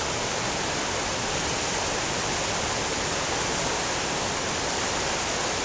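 A rain-swollen river in flood rushing past, a steady even noise of fast-moving water.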